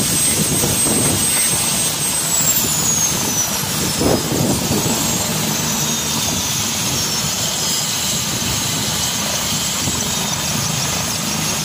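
Turbine helicopter hovering low and settling onto a helipad: steady rotor chop under a high turbine whine that slides down in pitch from about two seconds in.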